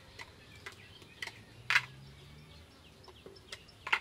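A few sharp plastic clicks as the snap-on lid-sticks are pulled off a plastic ice-cream mould, the loudest about halfway through and another just before the end.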